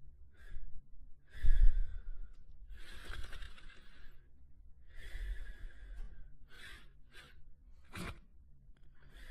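A sleeping dog snoring softly: irregular breathy snores about a second apart, the loudest about a second and a half in, with a shorter, sharper one about eight seconds in.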